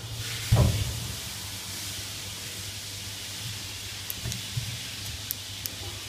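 A single dull thump about half a second in, over a steady hiss and a low hum, with a few faint light clicks near the end.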